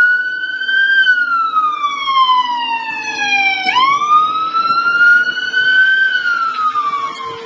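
A siren wailing in slow sweeps: its pitch climbs for about a second, falls for nearly three, leaps back up and climbs again, then falls away near the end.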